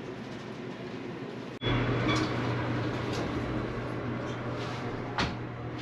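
Low, even shop background noise, then a sudden cut about a second and a half in to the steady low hum of a passenger elevator running, heard inside the cabin, with a faint click near the end.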